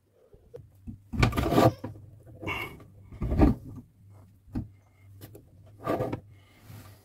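Handling noises as a phone camera is carried down into a kitchen sink cabinet: irregular knocks, bumps and rustles, the loudest about a second in, near the middle and near the end, over a faint steady low hum.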